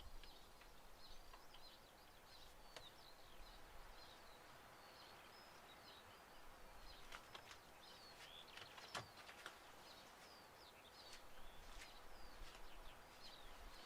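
Faint outdoor ambience: birds chirping in the distance, with a few light clicks.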